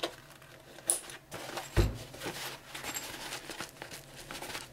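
Rustling and handling of a padded nylon binocular bag, fabric and mesh shifting under the hands with small clicks, and one soft low thump a little under two seconds in.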